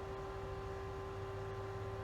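Steady hum with a faint low rumble and background hiss; no handling clicks.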